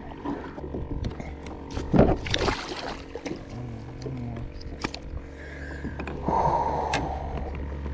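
A large redfish splashing and thrashing at the surface beside a kayak as it is landed, with the biggest splash about two seconds in and another shorter rush of water near the end.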